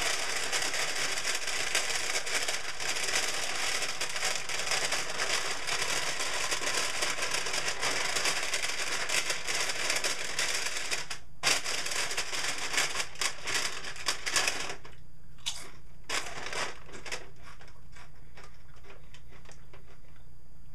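SunChips compostable chip bag of plant-based PLA plastic being crinkled and squeezed in the hands, a dense continuous crackling. It stops briefly about eleven seconds in, starts again, then thins to scattered crinkles after about fifteen seconds.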